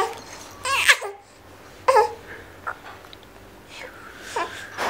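Infant cooing and babbling: a handful of short, high-pitched vocal sounds, about one every second or so.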